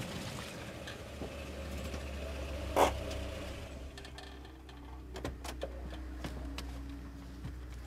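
Volvo car with its engine idling, a low steady hum, with a single clunk about three seconds in as its door opens, then scattered light knocks and clicks as someone climbs out into the mud.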